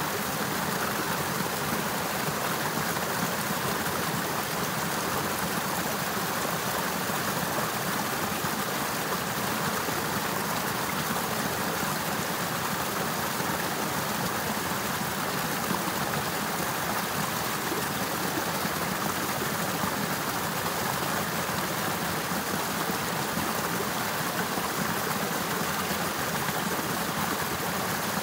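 Water of a partly frozen river running steadily, a continuous even rush.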